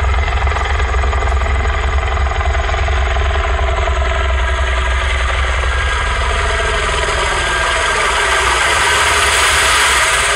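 Helicopter sound effect played loudly over a sound car's loudspeakers: a steady low rotor chop with engine drone, its pitch bending in the second half and swelling near the end.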